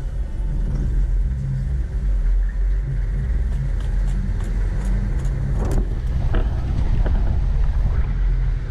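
Vehicle engine running with a steady low rumble as it drives slowly through soft sand, with a few light knocks and rattles about halfway through.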